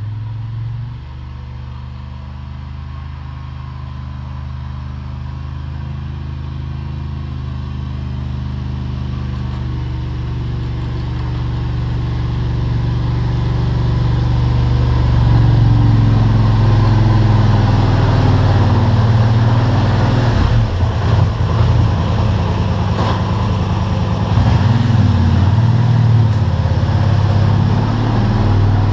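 ATV engine running as the machine drives toward the listener pushing snow with its front plow blade, growing steadily louder as it comes closer. In the second half the engine speed rises and falls unevenly while it manoeuvres close by.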